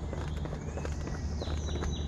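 Footsteps at a walking pace on the wooden plank deck of a footbridge, a run of short knocks. A few high, whistled bird notes come in about one and a half seconds in.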